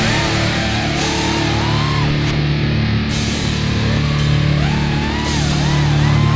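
Heavy rock music with electric guitar, its lead line bending up and down in pitch.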